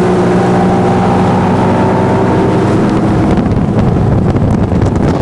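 A motorboat engine runs steadily at speed, with wind buffeting the microphone. The engine's tone fades after about three seconds and the wind takes over.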